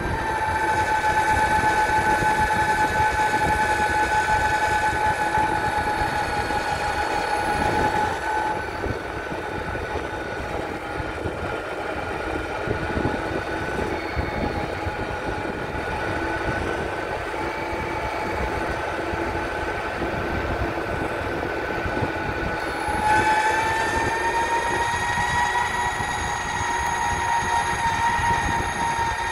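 Electric motors of an SYL-08 V3 electric mountainboard whining under a rough rumble of the wheels rolling over the ground. The whine eases and falls slightly in pitch about eight seconds in, then climbs and grows louder again later, following the board's speed.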